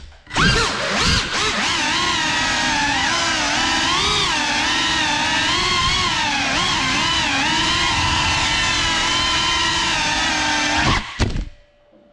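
A GEPRC Cinelog 35 cinewhoop quadcopter's four brushless motors whining, the pitch rising and falling with throttle as it flies fast and low, with a brief throttle cut just after the start. Near the end it crashes: a few sharp knocks and the motors cut off suddenly.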